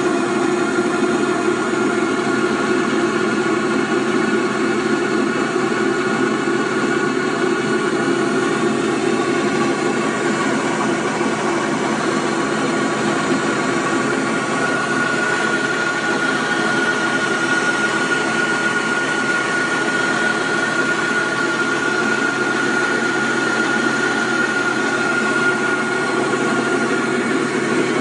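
Homemade magnetic-vortex rig running steadily: an electric motor turns its copper flywheels through a V-belt, making a continuous mechanical whir with several held whining tones. One of the higher tones grows stronger about halfway through.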